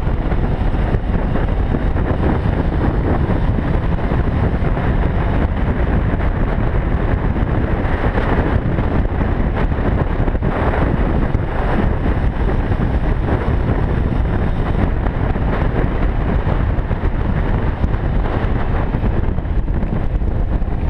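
Motorcycle riding along at steady speed, heard as a steady rush of wind on the microphone with the engine running underneath.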